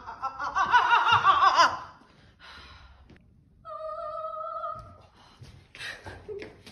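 A woman's voice singing a high, operatic-style note with heavy vibrato for about two seconds. A little later comes a short, steady held note of about a second, with no vibrato.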